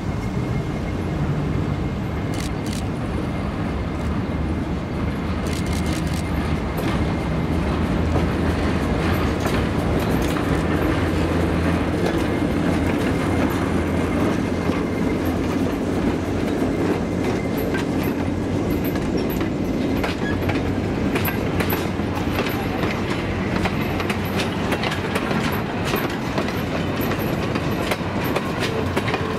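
Alco RS-1 diesel-electric locomotive passing with its train: the engine's drone swells as the locomotive goes by in the middle, then gives way to the wheels of the passenger cars clicking over the rail joints in a steady clickety-clack. A thin steady whine sounds under it and fades out along the way.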